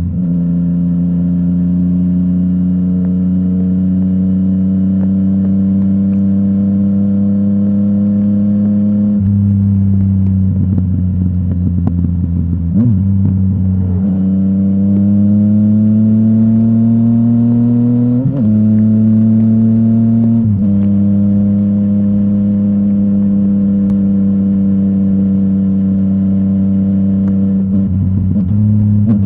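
Yamaha MT-09's inline-three engine running through a full Akrapovic exhaust system. The pitch mostly holds steady or climbs slowly, then changes abruptly several times, as at gear changes.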